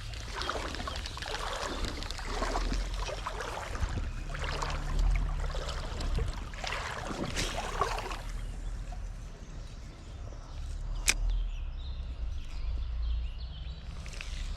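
Creek water sloshing and trickling, busiest over the first eight seconds and then quieter, over a steady low rumble of wind on the microphone. A single sharp click about eleven seconds in.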